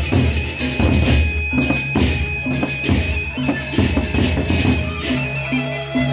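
Gendang beleq ensemble playing: large Sasak double-headed barrel drums struck by hand in a fast, driving rhythm over a steady high tone and a low drone. About five seconds in, the pattern settles into a more regular repeating beat.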